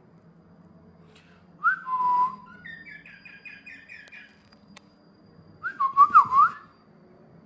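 Cockatiel whistling: a loud whistle that drops in pitch, a quick run of warbled chirps, then a burst of loud whistled notes sliding up and down.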